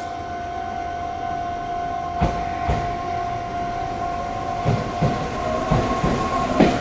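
An electric train rolling past, its wheels knocking over rail joints, the knocks coming faster near the end. A steady high tone sounds along with it.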